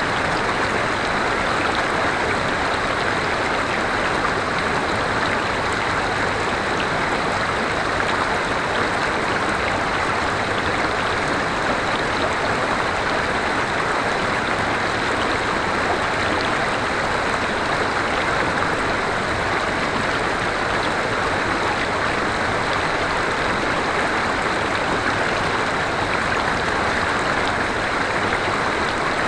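River water flowing steadily over rocks, a constant rushing and babbling without pauses.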